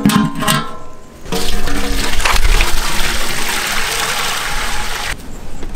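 Large aluminium cooking vessel ringing briefly as it is set down on the fire stand, then water poured from a steel pot into it in a loud gushing stream that stops about five seconds in.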